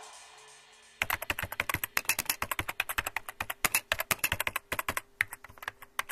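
Rapid computer keyboard typing clicks, a sound effect keyed to text being typed out, starting about a second in after the end of some music fades away.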